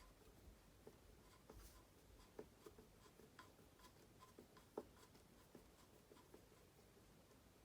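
Faint, irregular small clicks and scrapes of a flathead screwdriver turning a switch mounting screw, with one sharper click a little after the middle.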